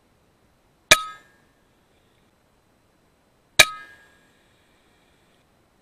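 Two shots from an FX Impact M3 .22 PCP air rifle, nearly three seconds apart. Each is a sharp crack followed by a brief metallic ring.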